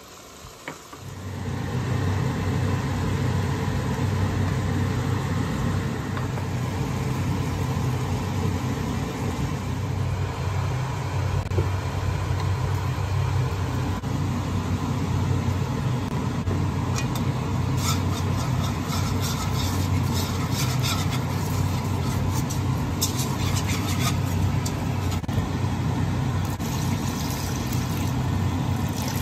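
A steady low mechanical hum starts about a second in and runs on unchanged. In the second half, quick light clicks and scrapes come and go over it.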